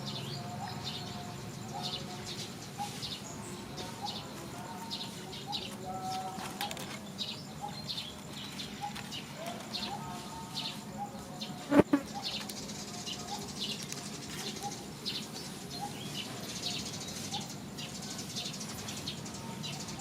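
Birds chirping and calling, with many short, high chirps and some lower short calls throughout. One sharp knock about twelve seconds in is the loudest sound.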